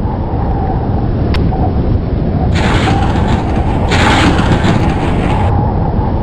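Dramatic title-sequence sound design: a loud, dense low rumble, with two whooshing swells, one about two and a half seconds in and one about four seconds in.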